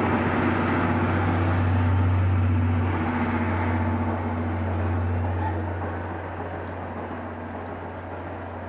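Train of 12-series passenger coaches behind a steam locomotive rolling past on the rails, a steady low rumble that fades after about five seconds as the last coach moves away.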